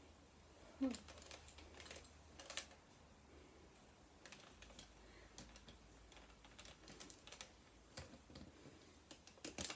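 Faint, irregular light clicks and taps from a resin ball-jointed doll being handled and posed, with one short hum-like voice sound about a second in.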